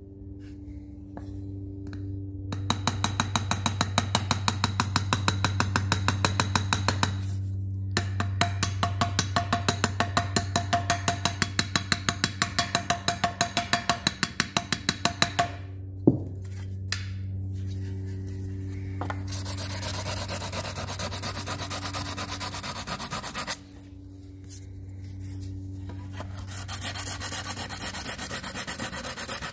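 Small hammer tapping dents out of an aluminum car seat molding: two long runs of rapid, even light taps on the metal, then one harder knock. After that, a steady scratchy rubbing as the aluminum is sanded by hand.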